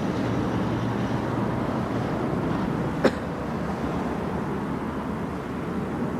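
Steady low rumble of heavy lorry engines running, with one sharp knock about three seconds in.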